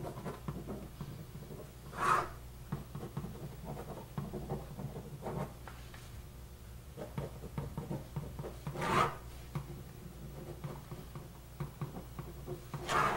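Marker pen writing letters and drawing table lines on a white writing surface: irregular scratching strokes, with three louder, longer strokes about two seconds in, near the middle, and near the end.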